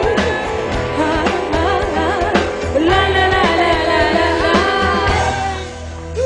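A live band playing with a singer carrying the melody in long, wavering held notes, over a steady bass and beat. The music thins briefly near the end before a new sung note comes in.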